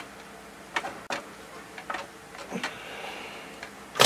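Pliers and plastic wire butt connectors being worked by hand: a few sharp light clicks and taps, with a louder burst of handling noise at the very end.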